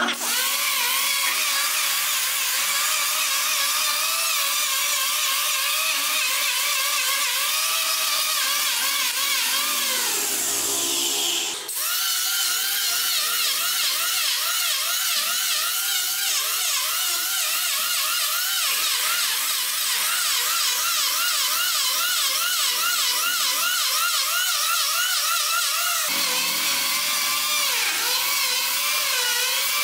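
Handheld electric planer running and shaving a wooden stair handrail, its motor whine dipping in pitch again and again as each pass bites into the wood. About ten seconds in it winds down and stops briefly, then starts again.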